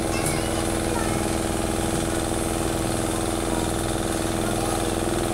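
A motor running steadily: a constant mechanical hum with several pitched tones and no change in level.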